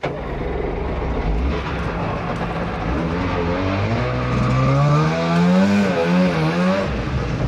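Boat motor running under power with a rush of water around it. Its pitch climbs and wavers from about three seconds in as it revs.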